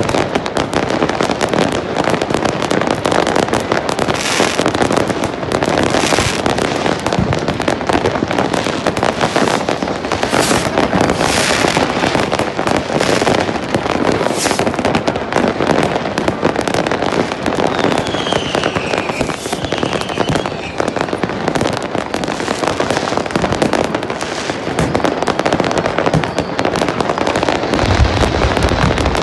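Massed fireworks going off at once: a dense, unbroken crackle of bangs and pops from many rockets and firecrackers. Several louder rushing bursts stand out, a few whistles fall in pitch about two thirds of the way in, and a deep thump comes near the end.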